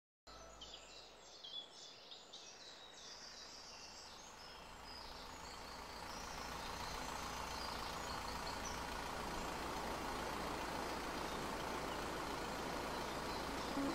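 Birds chirping for the first few seconds, then a steady rush of wind and water that grows louder as an outrigger boat runs across open sea.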